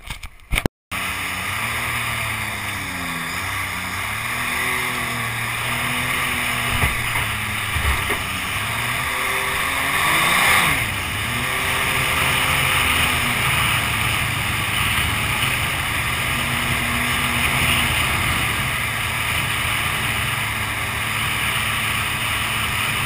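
Mini jet boat running at speed, heard from on board: a steady rush of water with the engine note rising and falling several times.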